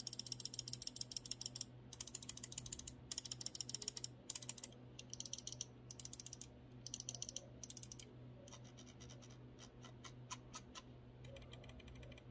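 Main buttons of a G-Wolves Hati-S gaming mouse being clicked in rapid bursts of crisp clicks, then slower single clicks after about eight seconds and one more quick burst near the end. The switches are ones the reviewer takes to be Kailh GM 8.0.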